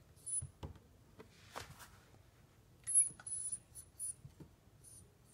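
A Siberian husky puppy moving on a wooden floor: scattered light taps, clicks and a scuff, with a few short, very high-pitched squeaks, the loudest of them about three seconds in.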